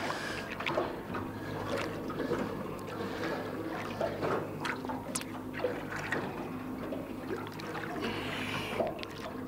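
Water splashing and slapping at the side of a boat as a hooked kingfish churns the surface beside it, with short irregular splashes over a steady low hum.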